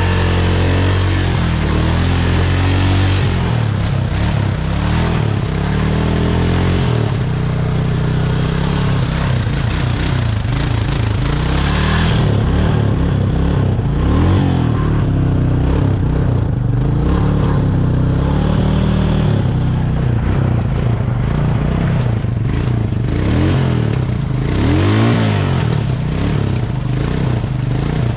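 Four-wheeler (ATV) engine revving up and down again and again as it is driven in second gear through a deep mud hole, with some clattering and scraping.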